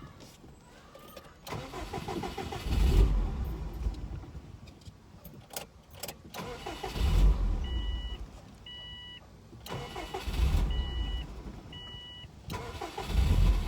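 Starter cranking a 2002 Subaru WRX's turbocharged flat-four in about four tries of roughly two seconds each, the engine not catching. A chime beeps five times, about once a second, partway through. The no-start is the owner's traced to a wet mass airflow sensor connector.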